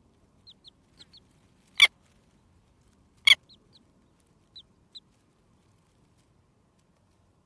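Newly hatched chicks giving short, high peeps that drop in pitch, mostly in pairs. Two sharp, loud clicks come about two seconds in and again a second and a half later.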